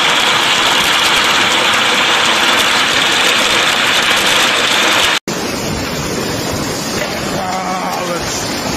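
Hailstones pelting down hard on a garden, a dense hissing clatter on the gravel, table and shrub. About five seconds in the sound changes abruptly to a softer, lower rush of a heavy downpour at night.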